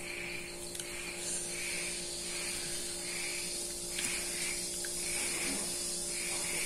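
Insect chorus: a steady high drone with a soft chirp repeating a little more than once a second, over a low steady electrical-sounding hum.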